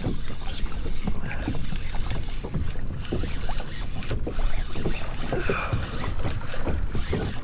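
Wind buffeting the microphone over water sloshing and knocking against a fishing kayak's hull, as a steady rumble with irregular small splashes.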